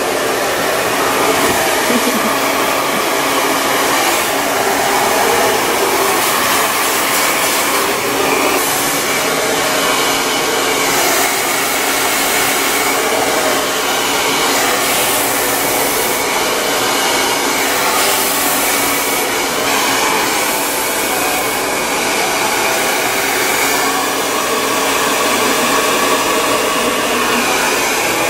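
Handheld hair dryer blowing steadily while a stylist blow-dries long hair: a loud, even rush of air with a faint low motor hum underneath.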